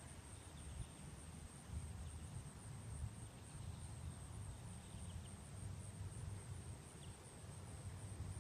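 Quiet outdoor ambience: a steady high insect chorus of crickets or cicadas, a low uneven rumble of wind on the microphone, and a few faint short bird chirps.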